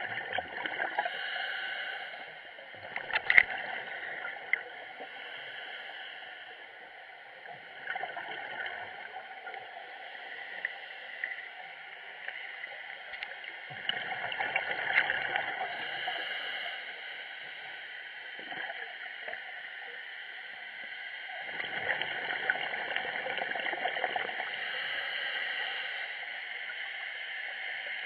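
Underwater camera audio of scuba divers' exhaled bubbles gurgling from their regulators, swelling in surges every several seconds over a steady muffled hiss. A sharp click about three seconds in is the loudest sound.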